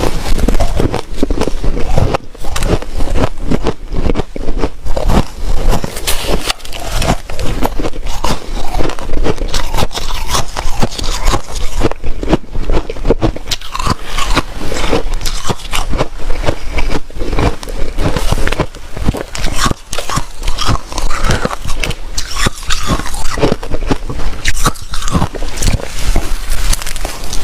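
White snow ice being bitten and chewed close to the microphone: a steady run of loud, crisp crunches and crackles.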